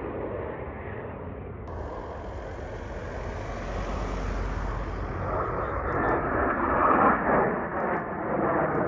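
Jet noise from a formation of Northrop F-5E Tiger II fighters, each with twin J85 turbojets, passing overhead: a steady rushing sound that grows louder from about halfway through.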